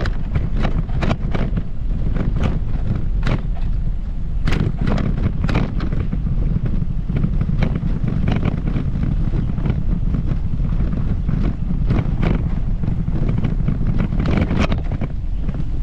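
Wind buffeting the microphone in a steady low rumble, with the walker's footsteps on the path coming through as sharp steps about once or twice a second.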